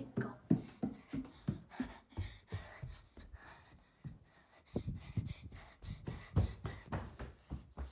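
Phone handled by someone on the move: a quick, irregular run of thumps and rustles, about three to four a second, with breathing, heaviest in the second half.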